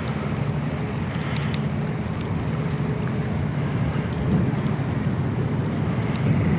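A steady, low engine drone with a constant hum, like a motor running nearby, under wind noise on the microphone.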